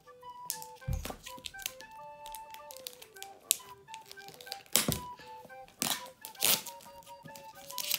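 Fingernails picking and scratching at the plastic wrap of an iPhone X box, with scattered sharp clicks and crinkles and a dull knock about a second in, over background music playing a simple melody of short notes.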